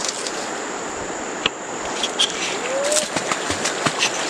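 Steady rushing water with scattered small knocks and splashes, over a thin high steady whine.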